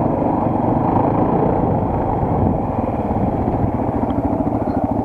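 Single-cylinder four-stroke enduro motorcycle engine running steadily, its rapid firing pulses even throughout, with a slight dip in loudness about two and a half seconds in.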